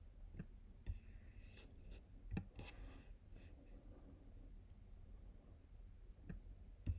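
Faint clicks and soft rustling of a computer mouse being slid and clicked on a desk, over a low steady hum.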